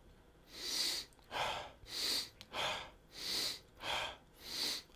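Forceful rhythmic breathing, a quick puff of breath in or out about every 0.6 seconds, timed to shoulder shrugs that rise on the inhale and drop on the exhale.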